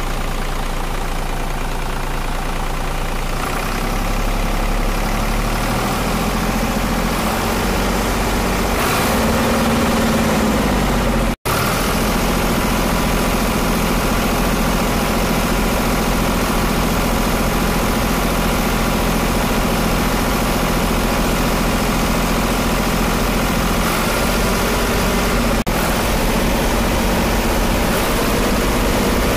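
Tractor engine idling steadily, a recorded engine sound laid over the picture rather than anything the toys make. It grows a little louder about 4 s in and cuts out for an instant about 11 s in.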